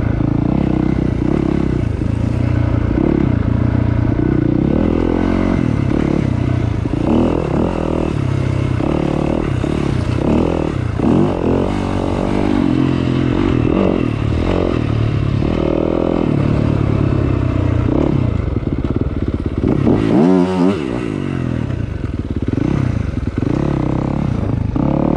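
Dirt bike engine running as the bike is ridden along a trail, its pitch rising and falling as the throttle is rolled on and off. About twenty seconds in, the engine note drops sharply and climbs again.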